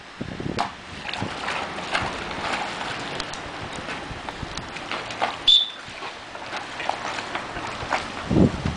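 Water splashing and churning as a dog jumps into a swimming pool and paddles after a floating ball. A brief high whistle sounds about five and a half seconds in.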